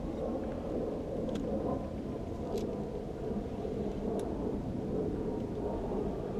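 Steady low rumble of wind and sea noise on a small open boat, with three faint clicks.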